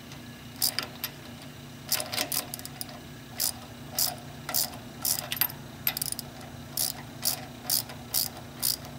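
Hand ratchet with a 15/16 socket clicking in a run of short strokes, roughly two clicks a second, as it backs off a valve cap on a Cat 2150 plunger pump.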